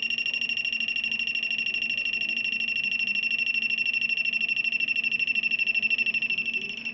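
A cheap touch-sensitive door alarm, rebuilt as a REM pod, going off: its buzzer holds one high-pitched, rapidly pulsing alarm tone. It was set off by being touched and left too near something.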